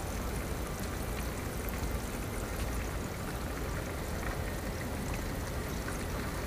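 Cornmeal-dredged flounder fillets sizzling steadily in hot oil in a skillet, with a few faint crackles.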